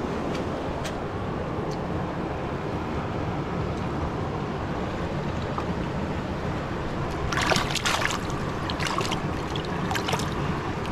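Steady rush of river water flowing over rocks. A burst of splashing comes about seven and a half seconds in, with a few more splashes near the end, as a hand holding a caught trout dips into the shallow water.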